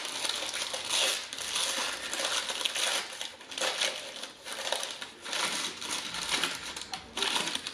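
Paper fast-food wrappers crinkling and rustling in repeated bursts as they are peeled off corn dogs by hand.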